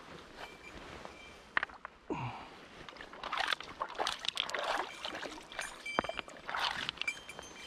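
Shallow river water sloshing and splashing at a rocky bank in irregular surges, with a few sharp clicks.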